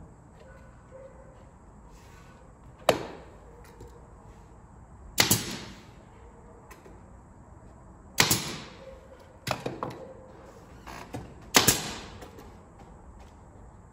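Pneumatic nail gun firing about five sharp shots a couple of seconds apart, with a few lighter knocks in between, nailing a wooden face frame onto a plywood cabinet box.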